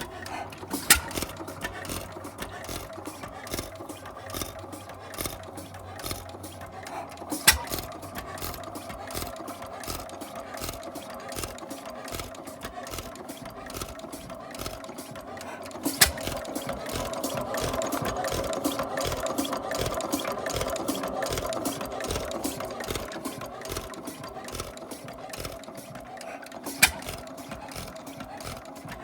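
Early Gardner 1AF single-cylinder stationary engine running with a rapid, steady mechanical clatter. Four sharp bangs stand out, and the running grows louder for a few seconds past the middle.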